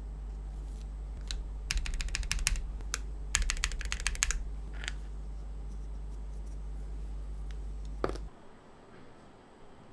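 Mechanical keyboard fitted with Cerakey V2 ceramic keycaps, typed on in two quick runs of keystrokes about two and three and a half seconds in, with a few single key clicks and a heavier knock near the end.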